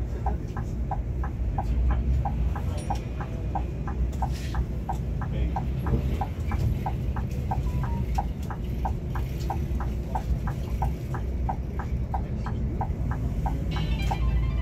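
A coach's turn-signal indicator ticking evenly, about three times a second, over the steady low rumble of the engine and road in the cabin. There is a short hiss near the end.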